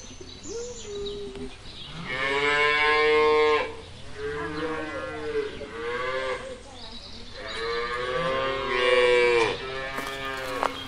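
Cows mooing: a run of long, drawn-out moos one after another, the loudest about two seconds in and again near the eight-second mark.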